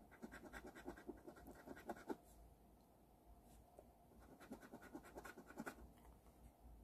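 Coin scraping the scratch-off coating from an instant lottery ticket: two faint runs of quick scratching strokes, about two seconds each, with a pause between them.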